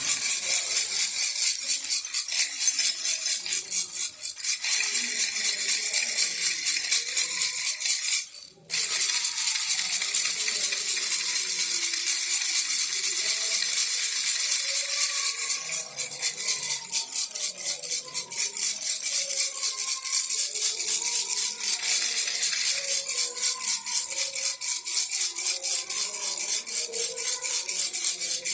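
Baby rattle shaken fast and continuously, a dense high clatter of beads, with one brief pause about eight seconds in.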